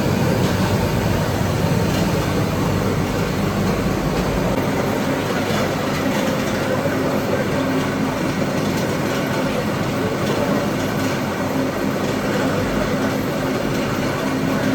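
Steady machinery noise from a running rotary-drum continuous carbonization furnace line, with its turning drum, fans and gas burners. A deep rumble eases about four seconds in, leaving a steady hum.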